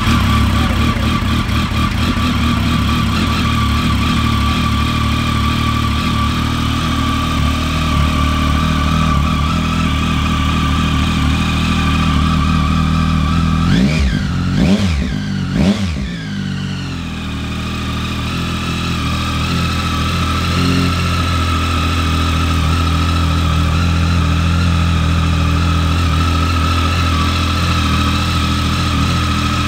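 2016 Triumph Speed Triple 1050's 1050cc three-cylinder engine, breathing through an Arrow aftermarket silencer, idling steadily just after a cold start. About halfway through, two quick throttle blips, after which it settles back to idle.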